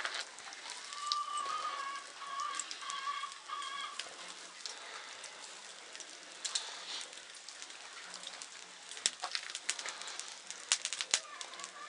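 A bird calling several times in quick succession over the first few seconds, followed by scattered sharp clicks and taps, a few louder ones near the end.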